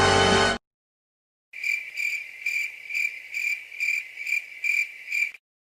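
Crickets chirping in an even, pulsing rhythm of about two to three chirps a second, starting after a short silence: the stock comedic 'awkward silence' cricket sound effect.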